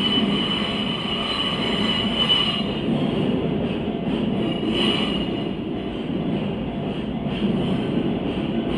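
Keiyo Rinkai Railway freight train rolling over a level crossing: a steady low rumble of the wagons, with a high wheel squeal for the first two seconds or so and again briefly about halfway through.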